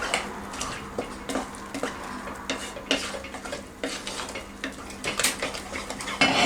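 Okra soup being stirred in a cooking pot: the stirring utensil scrapes and clinks against the pot in irregular knocks, with a louder knock near the end.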